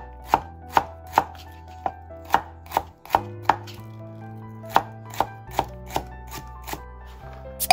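Chef's knife dicing celery stalks on a cutting board: sharp, irregular chopping knocks about two a second, with a short pause in the middle.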